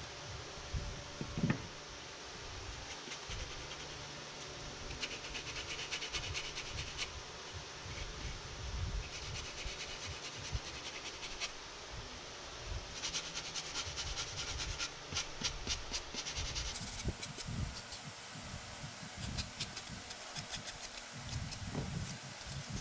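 Hand sanding of a plastic helmet part with a sanding sponge block: quick scratchy back-and-forth strokes in spells of a few seconds, with knocks from handling the parts in between.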